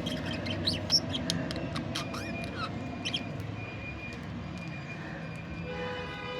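Budgerigars chirping: a flurry of short, quick chirps and sweeping calls in the first half, then a held whistle. A steady low rumble runs underneath, and a held tone sounds near the end.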